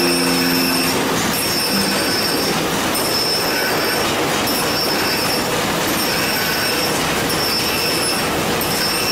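Abrasive cut-off wheel grinding through steel stock: a loud, steady harsh grinding with a high-pitched screech on top. The screech breaks off briefly about once a second.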